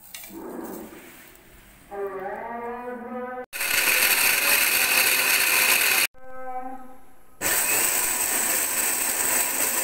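Panasonic electric mixer-grinder dry-grinding whole spices (fennel, cumin, coriander seed, cinnamon, cloves, black pepper, black cardamom, nutmeg, mace) into a powder. It runs twice: from about three and a half seconds in to about six seconds, then again from about seven and a half seconds on.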